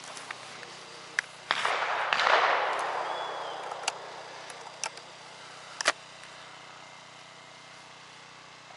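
Shooting-range ambience: a few sharp, distant cracks of shotgun shots, with a double crack near 6 s. About 1.5 s in, a rushing noise swells and fades over about two seconds.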